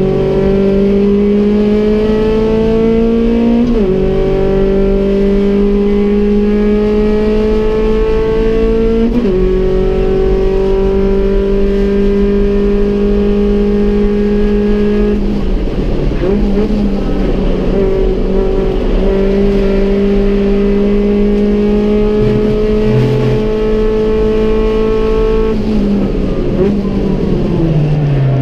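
Rover 100 (Metro) race car engine heard from inside the cockpit under hard acceleration. The revs climb and drop sharply at two upshifts, about 4 and 9 seconds in, then hold high and steady. The revs turn rough for a few seconds in the middle, then fall away near the end as the car slows.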